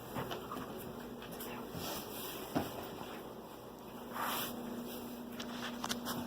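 A dog nosing and rooting through a fabric activity mat for hidden treats: faint rustling and soft clicks, with a louder rustle about four seconds in. A faint steady hum runs underneath from about four seconds on.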